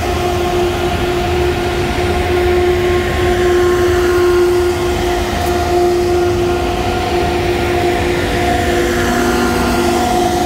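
A consist of class 18E electric locomotives passing on the adjacent track, one unit after another: a loud steady hum of two held tones over a low rumble, with a lower tone joining near the end.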